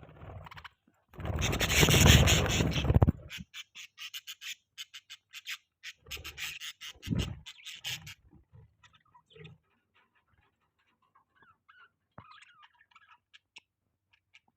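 Budgies chirping in quick, short notes. About a second in there is a loud rustling, rubbing noise that lasts about two seconds, and the chirps go on fainter towards the end.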